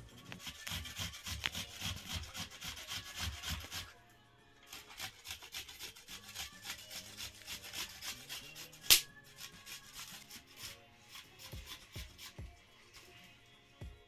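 Vegetables being cut for momo filling: quick repeated scraping strokes, dense and busy for the first few seconds, then sparser. There is one sharp knock about nine seconds in.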